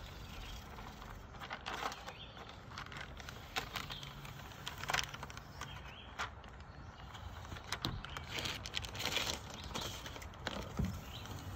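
Paper backing crackling and rustling as it is peeled up and rolled off a perforated vinyl window film, with scattered light clicks and knocks from handling.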